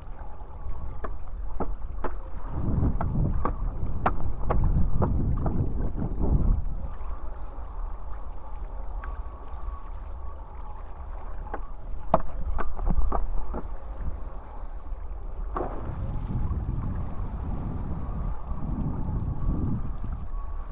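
Wind gusting over the microphone in waves of low rumble, with water splashing and scattered sharp ticks of spray, as a hydrofoil board rides down ocean swell.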